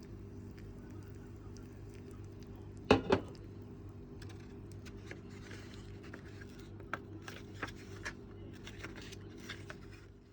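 A steady electrical hum from a kitchen appliance, with two sharp knocks close together about three seconds in and lighter clicks and rustling of kitchen handling later on.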